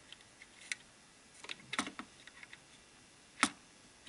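Scattered light clicks and taps from test probes and a circuit board being handled during component checks, with a cluster about halfway through and the sharpest click about three and a half seconds in.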